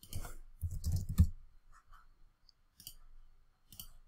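A string of separate computer clicks from a mouse and keyboard as a password is copied from a password manager and pasted into a login form. The loudest cluster of clicks, with a dull thud under them, comes about a second in, and single clicks follow at about 2, 3 and 4 seconds.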